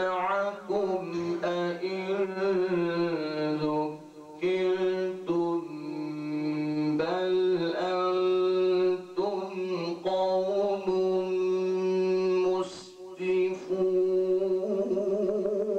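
A man's voice reciting the Quran in the melodic tilawat style, drawing out long held notes that bend slowly up and down, with several short breaks for breath.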